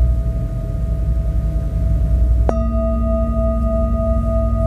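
Large metal singing bowl ringing, struck again with a mallet about halfway through. The fresh strike adds a lower tone and higher overtones, and the main ring pulses with a steady wobble, over a low rumble.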